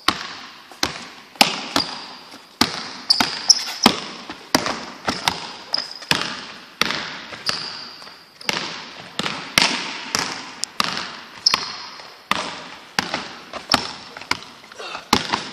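A basketball dribbled hard on a hardwood gym floor, about two bounces a second, each bounce echoing around the hall. Between bounces come short sneaker squeaks as the player plants and pushes off on the pullback dribble and drive.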